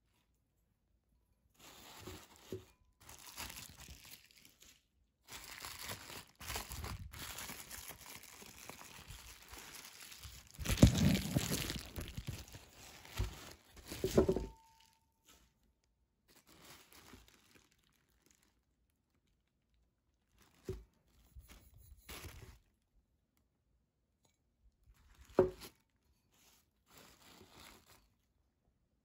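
Bubble wrap and tissue paper rustling and crinkling as they are handled and pulled aside, in irregular bursts that are loudest about eleven seconds in. A few shorter crinkles follow later, with one sharp tap about twenty-five seconds in.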